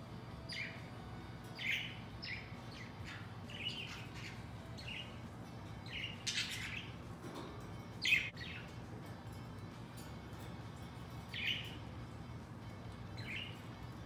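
Budgerigars chirping: a dozen or so short, scattered chirps, the loudest about eight seconds in.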